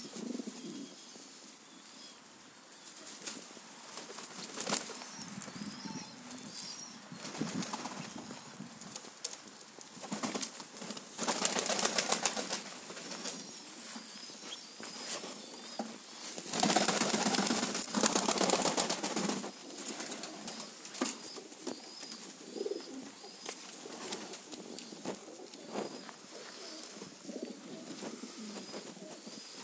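A flock of Hungarian Giant pigeons cooing and flapping their wings, with louder spells of wing-flapping about eleven seconds in and again around seventeen seconds.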